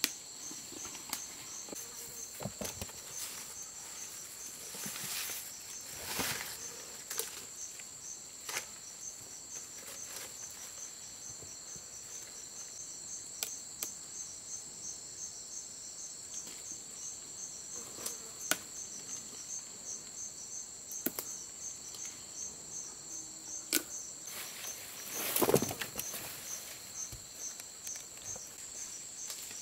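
A steady, high insect chorus of crickets chirring with an even, rapid pulse. Scattered sharp clicks and knocks sound over it, and a brief louder rustling noise comes near the end.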